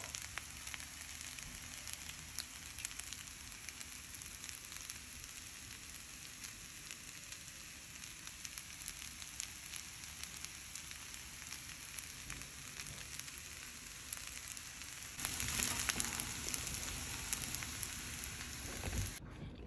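Shrimp fried rice sizzling in a hot pan: a steady hiss with fine crackles. It grows louder for a few seconds near the end.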